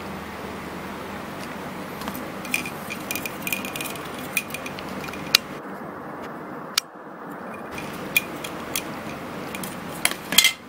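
Small hard-plastic clicks and rattles as a clear plastic razor-cartridge case and packaging are handled, over a steady hiss. A sharp click comes about five and a half seconds in, and a cluster of louder clicks near the end.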